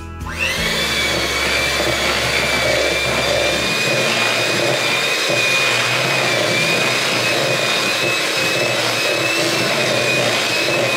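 Electric hand mixer switched on just as the sound begins, then running steadily with a high, even motor whine as its beaters whip mashed egg yolks and mayonnaise in a bowl.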